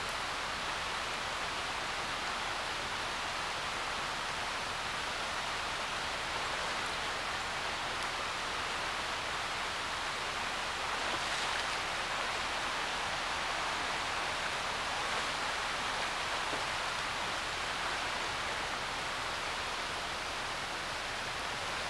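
Steady rush of a shallow, rocky mountain river flowing over rocks, an even hiss with no distinct events.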